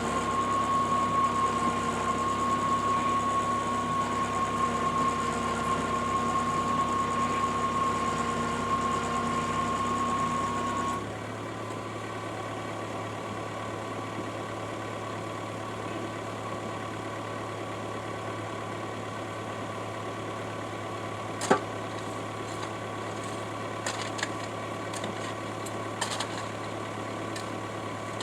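Engine and hydraulic drive of a 450 mm earth auger rig running steadily with a high whine while boring through rock crust into clay. About eleven seconds in the sound drops and changes pitch, then it runs on more quietly, with a few sharp knocks in the later part.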